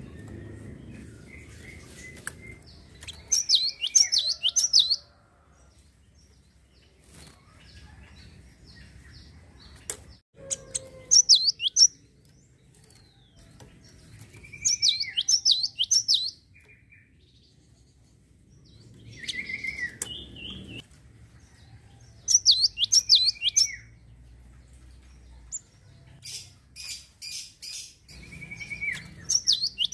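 A gelatik songbird singing in short bursts of fast, high chirping notes, each burst a second or two long and coming every few seconds.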